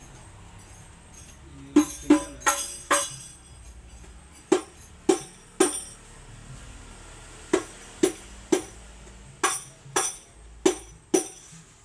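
Hadroh frame drum (rebana) struck by hand in a sound check: about fourteen sharp strokes in groups of three or four, separated by short pauses, each with a short ring.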